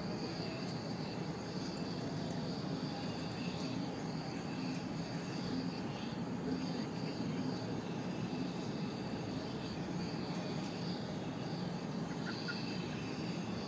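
Steady low roar of a large propane-fed flame burning in a big metal dish, the sound holding even throughout.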